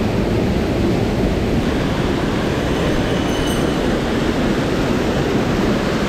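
Mountain stream running high after rain: a steady, loud rush of fast-flowing water, heaviest in the low end.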